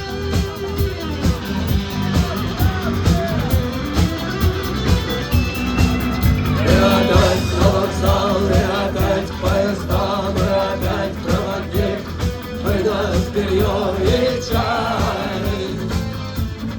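Live rock band playing with a steady drum beat. A wavering, sung or played melody line grows louder about six and a half seconds in.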